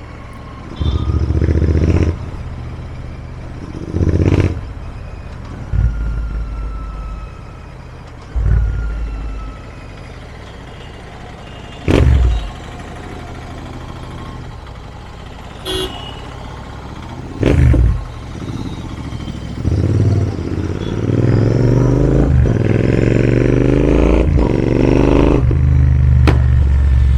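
Royal Enfield Interceptor 650 parallel-twin engine and exhaust on the move, revving in short bursts with sharp exhaust cracks between them. Near the end it pulls through a long acceleration, its pitch rising steadily. The pops come from an exhaust and ECU tuned for pops and bangs.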